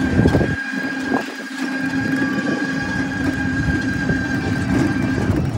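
Ride noise inside a moving motorised rickshaw: rattling and road rumble, with a steady whine held at one pitch that stops near the end.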